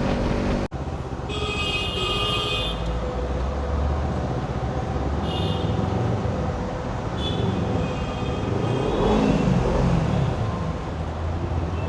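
Kawasaki Ninja 300 parallel-twin engine running under way in traffic, its pitch rising and falling around three-quarters of the way through. A horn sounds for about a second and a half near the start, with shorter horn-like toots later.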